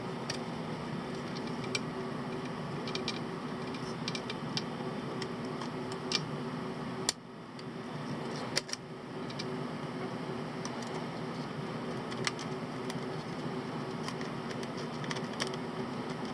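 Steady whir of a small fan, with light ticks and clicks of small tools and parts being handled. About seven seconds in, a sharp click and the whir drops briefly, then rises back within a couple of seconds.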